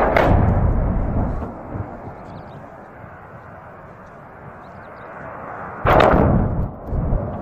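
Two distant explosion booms from tanker trucks blowing up in a fuel fire. Each is a sudden blast with a deep rumble trailing off over a second or so: the first at the start, the second about six seconds in. A steady rushing noise runs between them.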